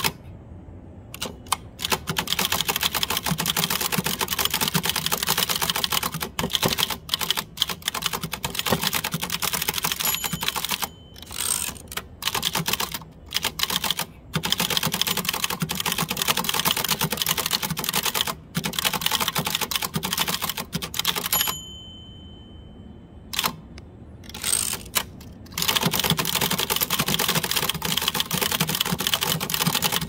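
1949 Adler Favorit 2 thrust-action manual typewriter being typed on steadily: a rapid run of clacking keystrokes as the typebars strike the platen, broken a few times by pauses of a second or two.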